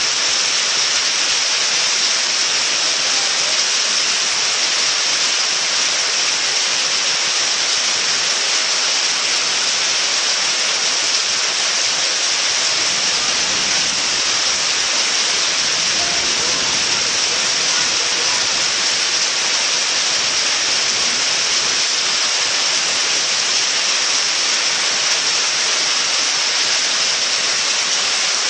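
A loud, steady hiss with no breaks or changes in level.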